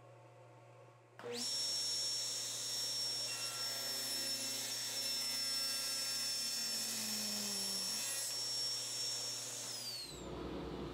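Table saw running and ripping a taper along a solid cherry table leg fed on a tapering jig: a steady whine over dense cutting noise that starts suddenly about a second in. Near the end its pitch falls.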